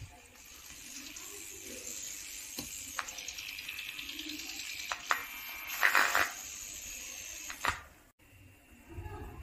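Hiss from a loudspeaker driven by a home-built LM386 amplifier, broken by a few clicks and a loud crackle about six seconds in as the 3.5 mm input jack is handled and plugged in; the hiss cuts off just before the end.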